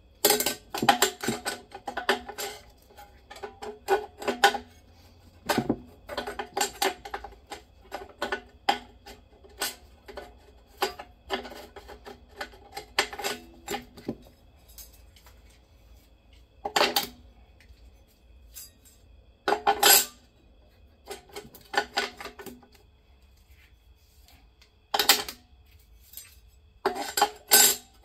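Steel and friction clutch plates clinking and clattering as they are lifted by hand out of a 4L80E automatic transmission case. The clatter comes in irregular bursts with a short metallic ring, with a few pauses between.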